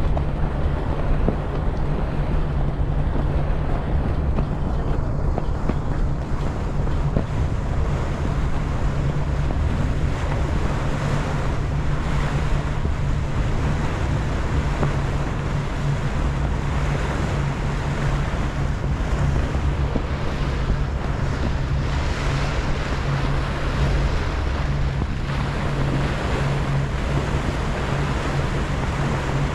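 Ferry's engine running steadily with a low drone, over the rush of water along the hull and wind buffeting the microphone.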